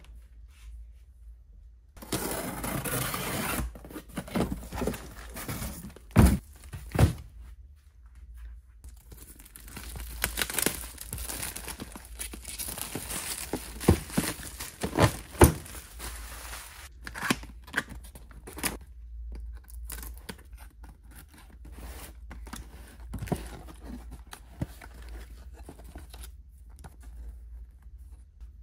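Packaging being opened by hand: a long tearing sound about two seconds in, as of tape or cardboard ripping off a shipping box, then cardboard and plastic wrap rustling and crinkling, with several sharp knocks as the boxes are handled.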